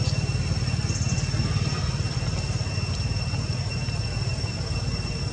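A steady low rumble of the idling-engine kind, with a constant high insect drone over it and a few faint high chirps.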